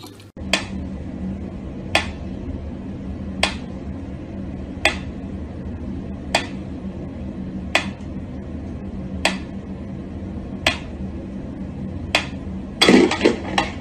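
Mechanical pendulum metronome ticking slowly, a sharp click about every one and a half seconds, ten in all, over a steady low hum. Shortly before the end a brief burst of louder noise.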